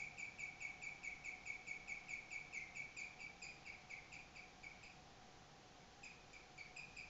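A pet animal's chirping song: a regular run of short, high, even chirps, about five a second, that breaks off for about a second past the middle and then starts again, over a faint steady hum.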